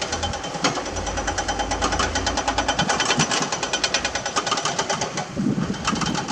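Diesel engine of a heavy construction machine running, with a rapid, even ticking clatter and a low hum that fades out about two and a half seconds in.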